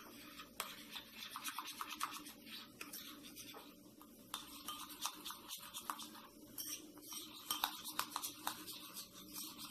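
A spoon stirring quickly in a small ceramic bowl, scraping against its sides as melted white chocolate coating is mixed with pink food colouring: a run of quick scratchy strokes.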